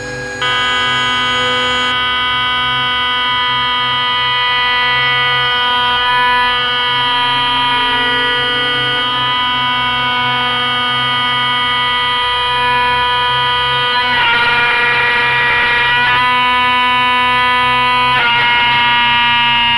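Spindle of a 6090 CNC router whining steadily, several tones at once, as a wide surfacing cutter faces off rough old wood. It gets suddenly louder just after the start. About 14 and 18 seconds in, the cutting turns rougher and the whine dips briefly in pitch as the cutter takes load.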